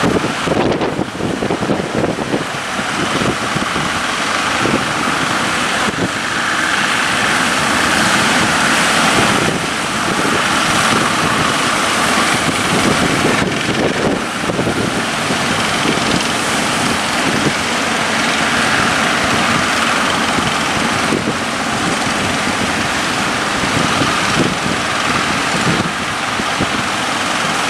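Boat at sea in rough water: wind buffeting the microphone and waves rushing against the hull, with a motor running underneath, steady throughout.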